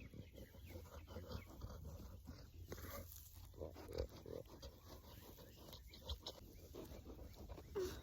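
A few soft, low grunts from a farm animal, one cluster about halfway through and another near the end, over a steady low rumble.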